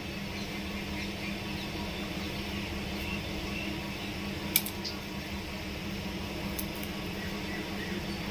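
Gas stove burner running under a pot of water as it heats: a steady hiss with a low hum. One sharp click about four and a half seconds in.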